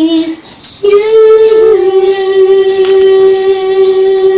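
A woman's voice singing one long, steady held note. It starts after a brief break about a second in.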